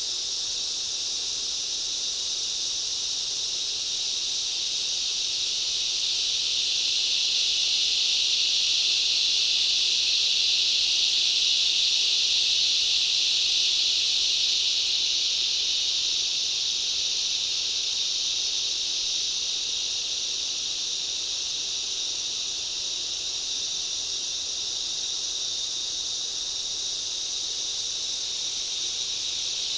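Rainforest insect chorus: a dense, steady high-pitched buzzing that swells louder from about a quarter of the way in and eases back down after the middle.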